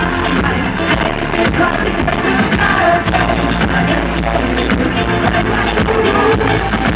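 Live pop song played loud through a stage PA, with a steady drum beat and a male singer's voice over it.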